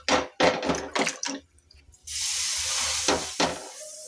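Water spread over a jowar bhakri on a hot iron tawa, hissing and sizzling; a steady high hiss starts suddenly about halfway through and fades after a couple of seconds.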